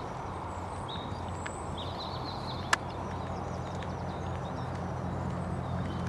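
Hoofbeats of a grey horse moving on a sand arena, with small birds chirping briefly and a single sharp click about two and a half seconds in.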